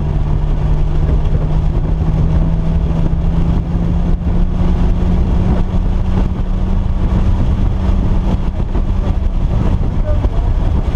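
Car engine running at a steady load over a heavy low rumble. Its pitch climbs slowly over the first several seconds and then holds steady.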